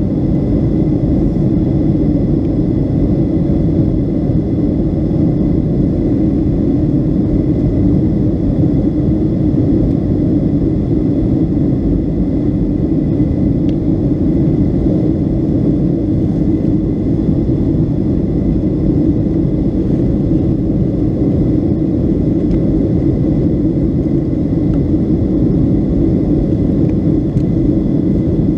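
Steady engine and airflow noise inside the cabin of a Boeing 757-200 in flight, from its Rolls-Royce RB211 turbofans, a deep even drone with faint steady high tones above it.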